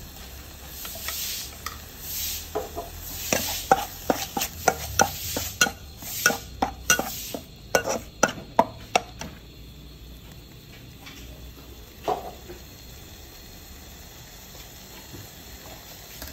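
Metal spatula scraping and knocking against a black wok while stirring spice paste frying in oil, a quick run of strokes about two a second that stops about two-thirds of the way through, with one more a few seconds later. A faint sizzle of the frying paste lies under it.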